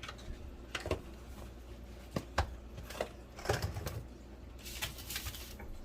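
Scattered light clicks and short rustles of hands working in a bowl of seasoned bread-crumb mixture, over a low steady hum.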